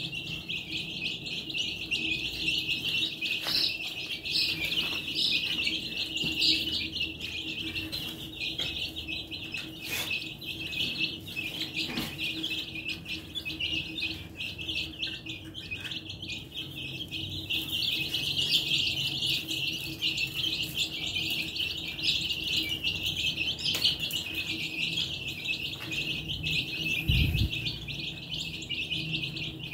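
A flock of baby chicks peeping without pause, many high calls overlapping. A low thump near the end.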